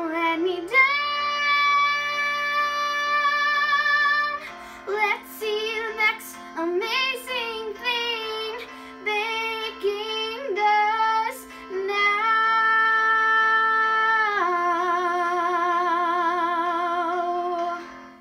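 A young girl singing over a backing track. She holds one long note about a second in, then sings a run of shorter phrases, and finishes with long held notes, the last one with vibrato, before the music fades out at the end.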